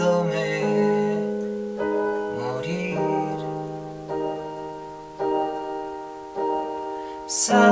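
Slow piano-voice chords played on a Yamaha portable keyboard, a new chord struck every second or so and left to ring and fade.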